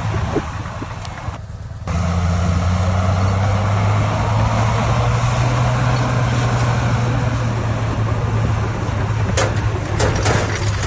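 Heavy diesel engine of earthmoving machinery running steadily, louder after a brief drop about two seconds in, with scattered sharp clicks and knocks near the end.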